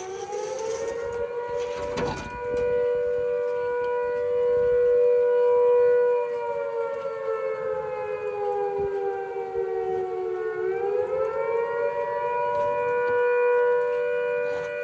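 Outdoor flood warning siren wailing across the valley: its tone rises, holds steady, sinks slowly, then rises and holds again. The siren warns of flooding in the valley. There is a brief knock about two seconds in.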